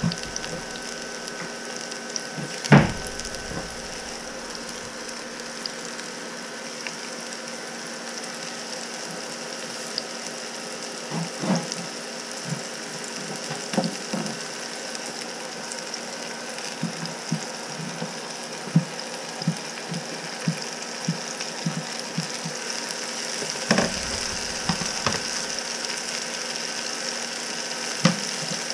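Chopped mushrooms frying in hot oil in a pan: a steady sizzle with scattered pops and crackles, one sharper click about three seconds in.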